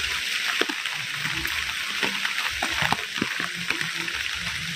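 Heavy rain falling: a steady hiss with many scattered drips and splashes.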